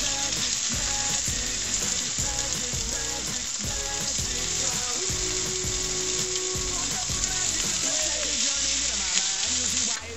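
Slices of Spam frying in a hot pan in leftover Spam grease: a steady sizzle that cuts off suddenly near the end.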